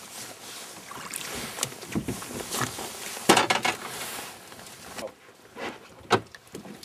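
Water sloshing and splashing against the side of a small boat, with knocks and handling bumps and one loud knock or splash about three seconds in; it goes quieter near the end, with a couple of sharp clicks.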